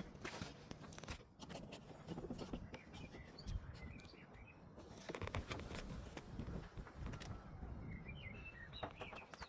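Faint scattered clicks and knocks of lawnmower parts being handled during assembly, with birds chirping a few times in the background.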